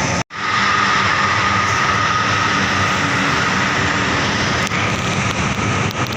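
Loud, steady road-traffic noise of buses and trucks passing close by, engine and tyre noise running together. The sound cuts out completely for a split second just after the start.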